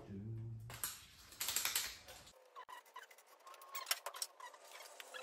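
Quick light clicks and taps of thin sheet steel being handled and shaped, a few leaving a brief metallic ring.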